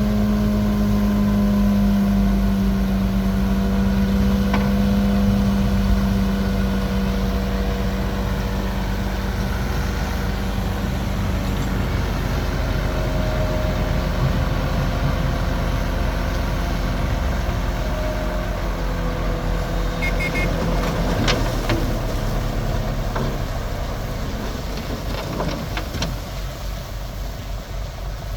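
Bulldozer's diesel engine running steadily under load. A strong steady engine note weakens about halfway through, and a few sharp metallic knocks come later.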